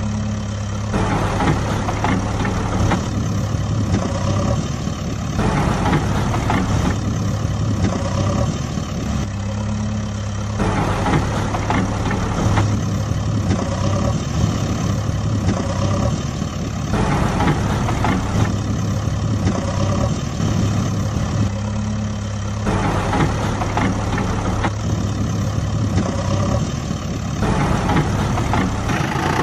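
Heavy vehicle engine idling, a recorded sound effect that repeats in a loop every five to six seconds.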